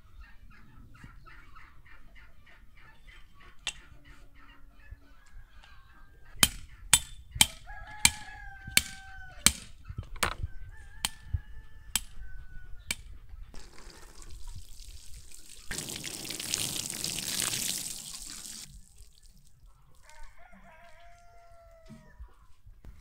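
Farmyard chickens clucking and calling. About six seconds in come six sharp axe strikes splitting wood, roughly half a second apart. Later, a few seconds of water rushing from a watering can onto the garden soil.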